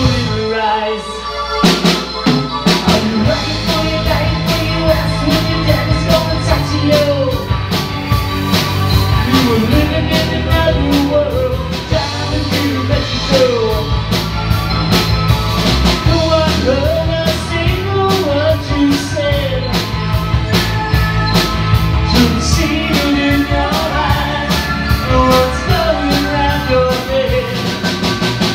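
Rock band music: a drum kit keeps a steady beat under electric guitars, with a bending lead melody line over the top. The bass end fills out about two seconds in.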